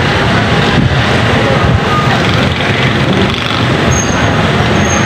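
Loud, steady rush of a rainstorm, with wind rumbling on the microphone.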